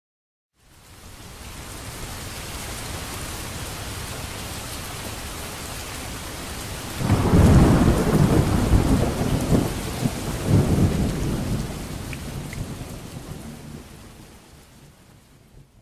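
Steady rain, then a thunderclap about seven seconds in that rumbles in several swells for around five seconds before the storm sound fades out.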